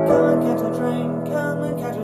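A woman singing with piano accompaniment.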